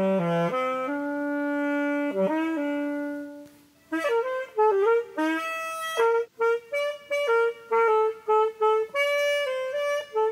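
Saxophone playing a solo melody: long held notes for the first few seconds, then a run of short, detached notes, stopping abruptly at the end.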